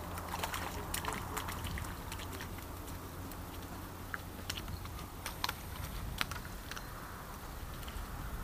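A hooked fish being reeled in and landed in the shallows: scattered light clicks and small water splashes in two clusters, over a steady low rumble.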